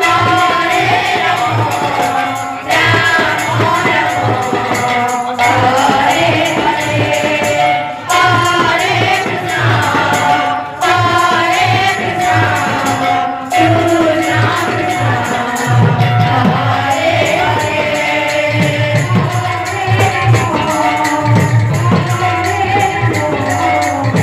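Kirtan music from a women's group: voices singing a devotional melody over jingling percussion and a drum keeping a steady beat.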